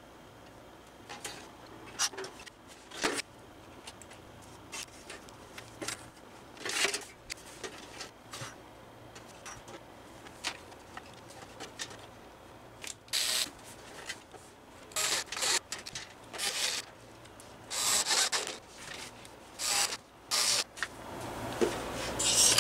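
Handling noise of a space heater being reassembled: irregular clicks, knocks and scraping of its sheet-metal and plastic parts. Longer scrapes come in the second half as the plastic end housing is worked back onto the case.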